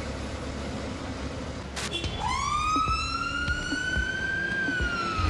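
Fire engine's siren starting up about two seconds in, after a short knock over a low engine rumble: one slow wail whose pitch rises for a couple of seconds, then begins to fall.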